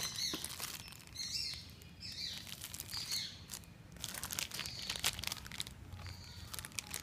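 Clear plastic packaging bags crinkling and rustling as the phone's handset and cables are handled, with several short bird chirps in the first half.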